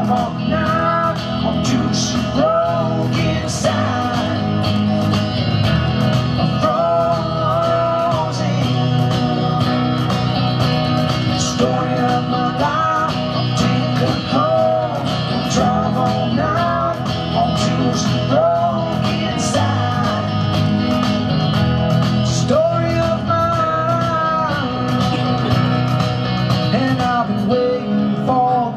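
Live country-rock music on electric guitar, with a man singing into a microphone.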